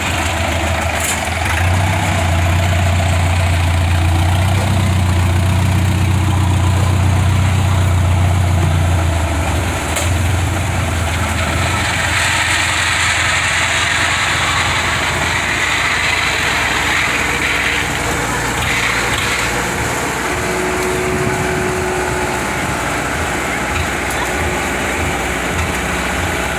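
Diesel engines of a tractor and a Kubota 105 combine harvester climbing onto a field bank, running hard with a deep steady drone for about the first ten seconds, then easing to a lighter, rougher run.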